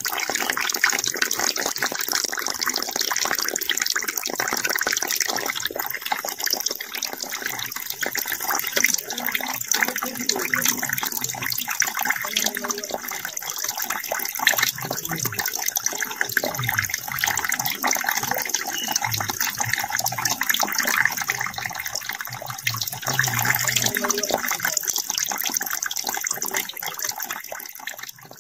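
A steady stream of water pouring from a small pump's outlet tube and splashing into a muddy puddle.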